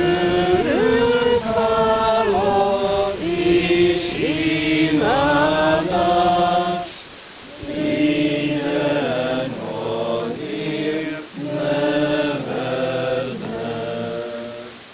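A congregation singing a church hymn together in long held notes, phrase by phrase, with a short breath pause about seven seconds in.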